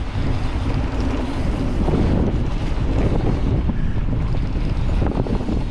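Mountain bike descending a downhill dirt trail at speed: a loud, steady rush of wind on the microphone over the rumble of the tyres, with small knocks and rattles from the bike over rough ground.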